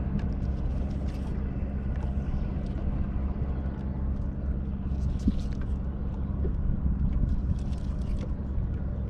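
A boat engine running steadily at an even pitch, with a few faint clicks on top.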